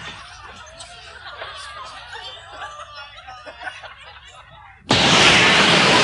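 A group of voices giggling and snickering over an answering machine. About five seconds in, a sudden loud burst of cheering and shrieking breaks out.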